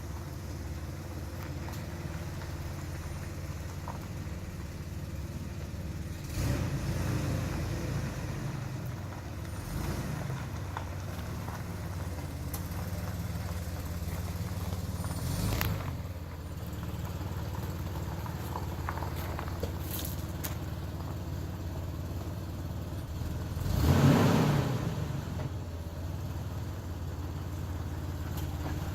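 Boat engine running at low speed with a steady hum, with a few brief louder swells, the biggest about two-thirds of the way through.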